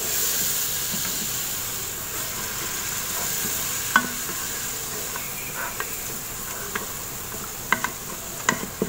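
Onions and whole spices sizzling in oil in an electric rice cooker's pot, a steady hiss that slowly dies down. A wooden spatula stirs through it, with a few sharp knocks against the pot, about four seconds in and near the end.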